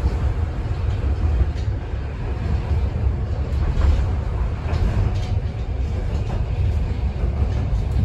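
Iyo Railway Moha 5000 low-floor tram running, heard from inside the car: a steady low rumble of wheels on the track, with a few light clicks.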